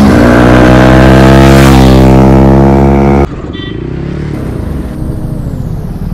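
Bajaj Pulsar NS160's single-cylinder engine through an aftermarket SC Project exhaust, a very loud, steady exhaust note that cuts off abruptly about three seconds in. It gives way to quieter engine and road noise of the bike being ridden.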